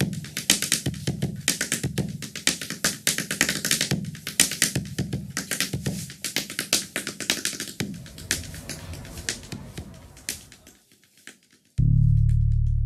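West African calabash, a large half-gourd drum, played by hand in a fast rhythm of sharp high clicks over deep bass strokes. It thins out and fades to silence about eleven seconds in. Just before the end a steady low tone comes in suddenly.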